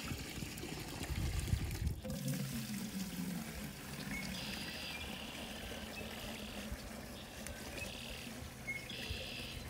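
Maple sap poured from a tree-hung collection bucket into a larger plastic bucket, a steady trickling pour. It starts with a low rumble of handling over the first couple of seconds.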